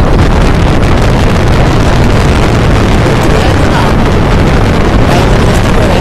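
Motorcycle riding at speed on the highway: loud, steady wind rush on the microphone over the engine.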